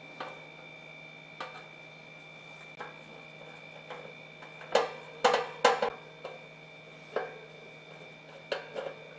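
Scattered light clicks and clinks of small metal parts being handled, about ten in all, with a quick cluster of three about halfway through. A faint steady high whine runs underneath.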